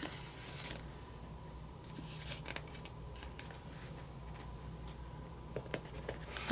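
Faint rustling and small clicks of paper sticker sheets being handled, with a few sharper ticks about five and a half seconds in, over a steady hum.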